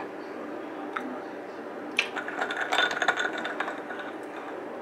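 Clicking and clattering of kitchen things while a drink is being made: one click about a second in, then a sharp clack about two seconds in followed by a second and a half of rattling clicks and clinks.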